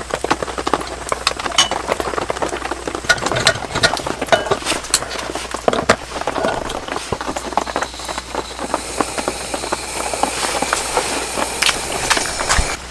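Pressure lantern being lit: scattered clicks and taps of the lantern's metal parts being handled while it is primed and its valve worked. From about two-thirds through, a steady high hiss builds as the burner takes pressure and the mantle lights.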